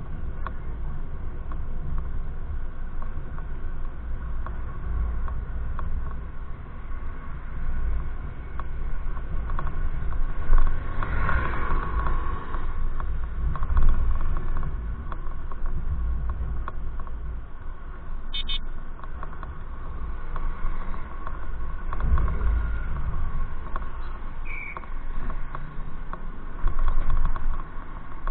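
Riding noise of a small scooter on asphalt: wind buffeting the microphone and tyre rumble that swells now and then, with a faint steady whine.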